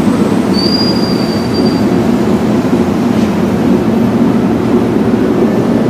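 Car ferry's engines running with a loud, steady drone, heard from the open side deck. A faint high whistle sounds briefly about half a second in.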